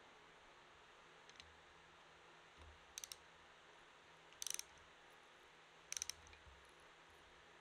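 Small ratchet wrench clicking as it turns a nut, in three short bursts of a few quick clicks about a second and a half apart, starting about three seconds in.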